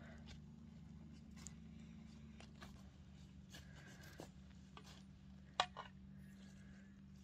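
Faint rustling and light snapping of greens being picked by hand among grass and leaf litter, with a sharp click about five and a half seconds in, over a low steady hum.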